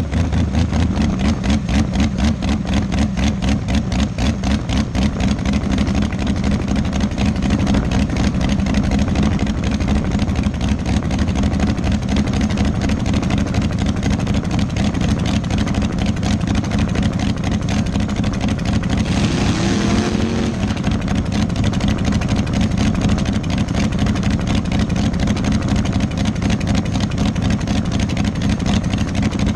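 Dragster engine idling loudly with a rapid, even throb while the car creeps forward at low speed. About twenty seconds in a short, higher-pitched sound rises over it, then fades.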